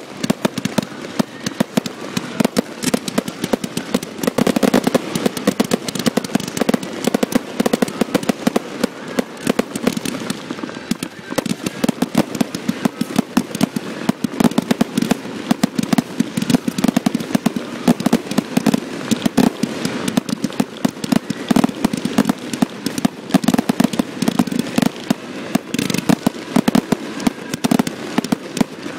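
Aerial fireworks bursting overhead in a rapid, unbroken series of bangs and crackles, loud throughout.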